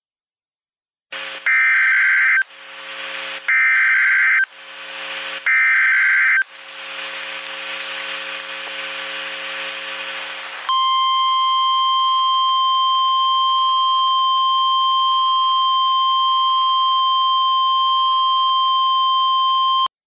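Emergency Alert System header: three short, screeching bursts of digital data tones about two seconds apart, with a hissing hum in the gaps. Then a steady, single-pitch EAS attention tone is held for about nine seconds and cuts off.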